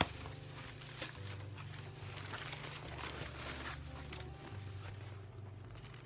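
Paper stuffing rustling and crinkling in irregular handfuls as it is pulled out from inside a new handbag.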